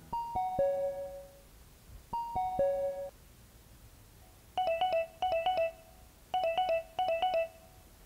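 Electronic, ringtone-like chime tones: a three-note falling phrase played twice, then a quick trilling ring pattern in four short bursts.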